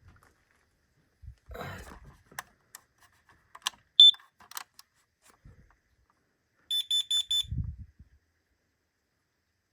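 Smoke alarm being tested by hand: handling rustle and button clicks, one short loud high chirp about four seconds in, then a quick run of five high beeps about three seconds later, followed by a soft thump. The test sounds normally, so the unit is working.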